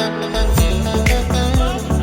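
Background music: held instrumental notes, with a bass-heavy drum beat coming in about half a second in.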